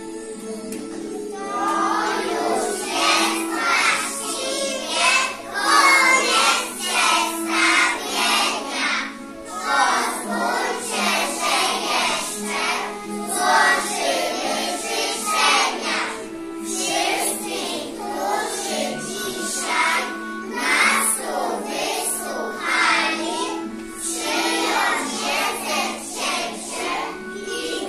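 A group of young children singing a song together over a recorded instrumental backing track, with the backing's held notes beneath the voices.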